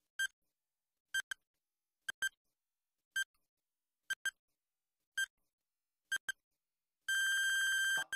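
Electronic countdown-timer sound effect: a short beep about once a second, some in quick pairs, as the seconds count down. Near the end, as the count reaches zero, a single steady beep about a second long sounds.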